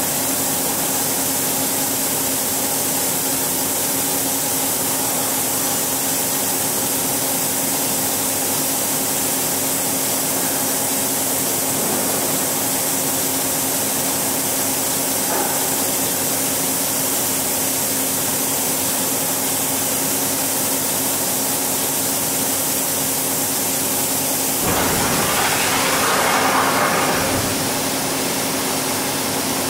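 Niigata HN-80C CNC horizontal machining center running without cutting: a steady machine hum with several held tones under an even hiss. About 25 s in, a louder rushing hiss of roughly three seconds comes as the tool-changer door in the column opens.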